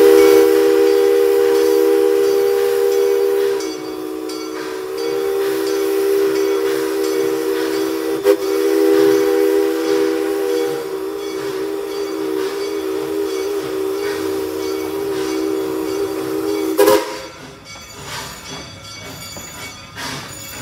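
Steam locomotive whistle blowing one long chord of several tones for about seventeen seconds. It dips briefly about four seconds in, then cuts off sharply, leaving the quieter sound of the train running.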